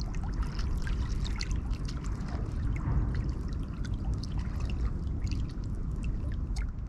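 Water trickling and lapping, a stream of small irregular ticks and splashes over a steady low rumble.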